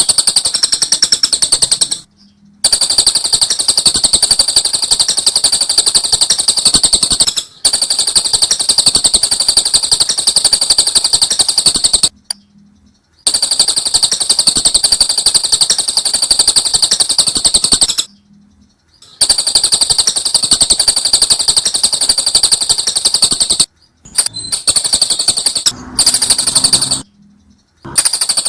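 Lovebird ngekek: long bouts of very rapid, high-pitched chattering, each lasting a few seconds, broken by short pauses of about a second.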